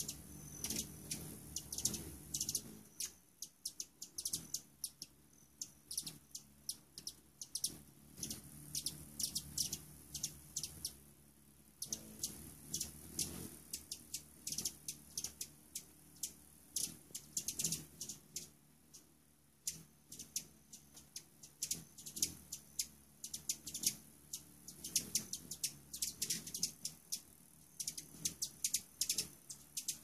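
Hummingbirds at a feeder giving many sharp, high chip calls in quick, irregular runs throughout.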